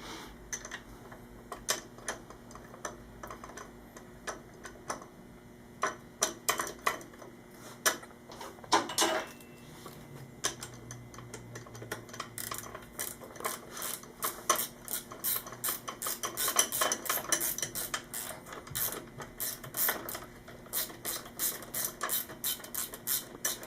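Metal clicking and tapping of hand tools and chain-adjuster hardware being fitted at a motorcycle swingarm. Scattered clicks at first, then from about twelve seconds in a faster, steadier run of several clicks a second.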